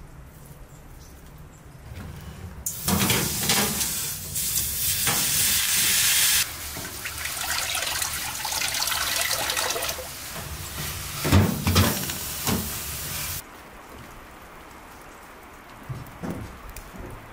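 Water poured from an enamel kettle into a hot pan on the stove, hissing and sizzling loudly as it hits. The hiss starts suddenly, is brightest for the first few seconds, has a few knocks of the kettle or pan partway through, and cuts off abruptly.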